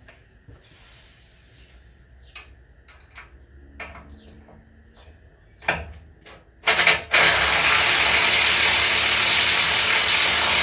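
Cordless impact wrench driving a bolt into a truck frame spring mount: a few short trigger bursts about six to seven seconds in, then one steady run of about four seconds that carries to the end. Before that, faint clicks of the socket and bolt being handled.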